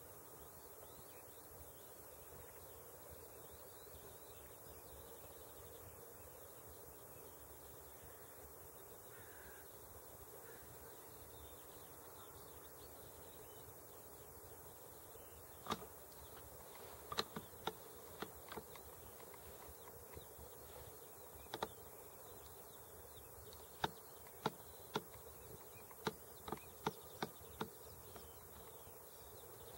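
Faint steady outdoor background noise, then from about halfway an irregular run of about fifteen sharp, very short clicks, some in quick pairs and triplets.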